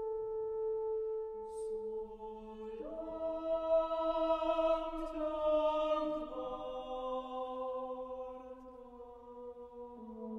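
Chamber choir singing a slow requiem in long, held chords. A new, fuller chord comes in about three seconds in, and the harmony shifts again around six and ten seconds.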